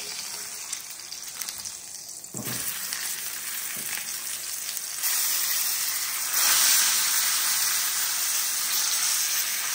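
Beef roast searing in hot oil in a cast iron skillet: a steady high sizzle that jumps louder each time the meat is pressed onto a fresh side with tongs, about two and a half, five and six and a half seconds in.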